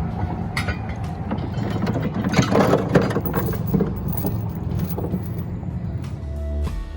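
Boat motor running on the water, with wind on the microphone. Background music comes in about six seconds in.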